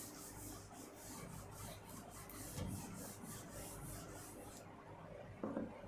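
A chalkboard being wiped clean with a duster: repeated faint rubbing strokes that stop about four and a half seconds in.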